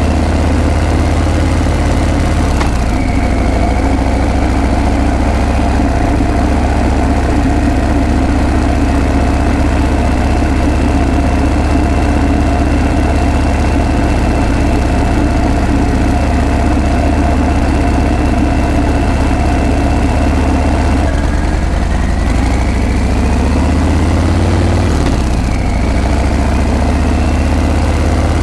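Harley-Davidson Breakout's V-twin engine and exhaust running steadily. Near the end the engine note drops and then climbs again.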